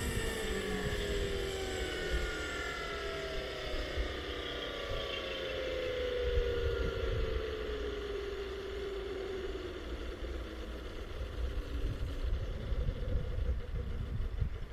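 Electric motor, gearbox and main rotor of a large scale RC helicopter (AW139 model, Kontronik Pyro 800-48 motor) spinning down after landing: a whine that falls steadily in pitch and fades out about ten seconds in, leaving a low rumble.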